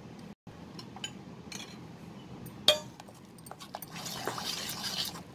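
A spoon stirring a thick, oily spice-and-yogurt marinade in a steel bowl, with light clinks of metal on the steel and one sharp clink about halfway through. Near the end comes a stretch of wet stirring and scraping.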